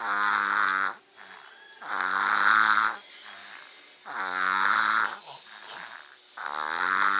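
A cat snoring in a steady rhythm: four loud, pitched snores about two seconds apart, each lasting about a second, with quieter breaths between.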